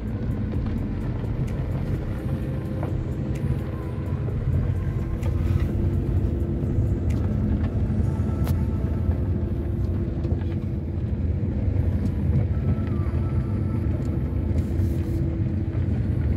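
Car driving slowly on an unpaved dirt road, heard from inside the cabin: a steady low rumble of engine and tyres, with occasional small ticks and rattles.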